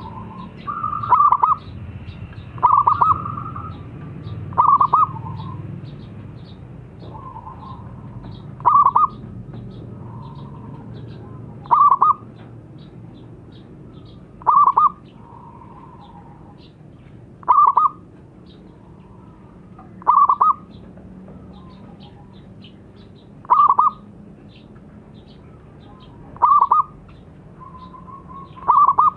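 Zebra dove (perkutut) cooing: a short, loud call about every three seconds, with softer low coos in between.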